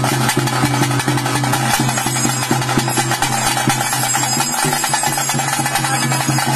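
Bhuta kola ritual music: rapid drumming with a steady drone held underneath, accompanying the Guliga kola dance.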